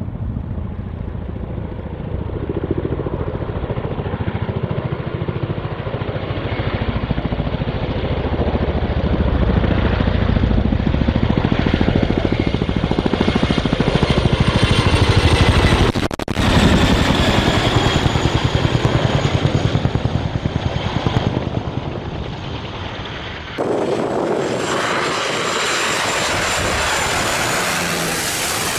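Chinook tandem-rotor helicopter flying low past, its rotor blades beating in a rapid, steady chop over a deep engine rumble that builds to its loudest in the middle. Near the end the sound cuts abruptly to a small propeller plane passing low overhead on approach, a steady rushing drone.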